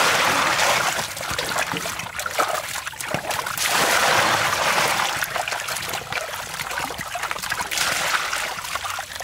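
Water poured from a container into a large basin of corn cobs, splashing down into the water, while hands swish and rub the cobs. The pour surges three times: near the start, about four seconds in, and near the end.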